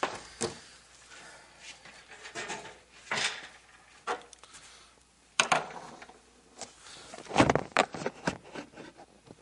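Hands setting down and handling boxes of 8mm rifle cartridges on a table: a series of scattered knocks, clicks and rubbing, with the loudest cluster of knocks about seven and a half seconds in.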